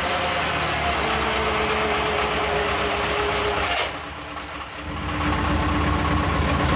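Ursus C-360 tractor's four-cylinder diesel engine running while the tractor drives, heard from inside the cab. About four seconds in the engine sound drops and quietens for a moment, then picks up again.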